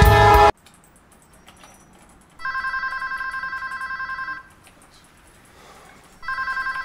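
Choir music cuts off about half a second in; then an office telephone rings with an electronic trill, two rings of about two seconds each, the second starting near the end.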